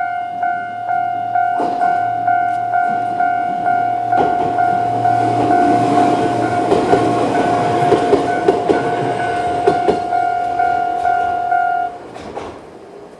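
Railway level-crossing alarm ringing a steady, rapidly repeating electronic bell tone while a Choshi Electric Railway 2000-series train passes over the crossing, its wheels clacking over the rail joints. The alarm cuts off near the end.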